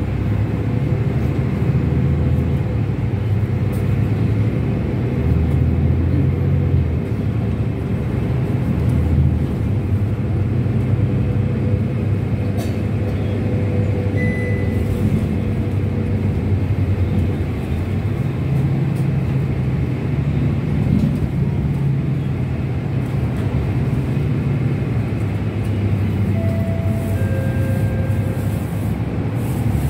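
Bus engine and road noise heard inside the moving bus: a steady low drone, with a few brief faint squeaks in the cabin.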